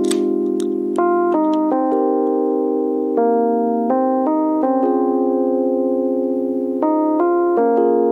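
Background music: sustained keyboard chords, changing every second or so.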